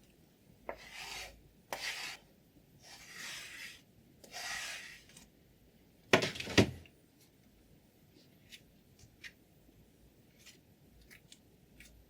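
Four short rasping strokes of a sharpening stone drawn along a scissor blade, each starting with a small click, then a louder double knock about six seconds in and a few faint ticks.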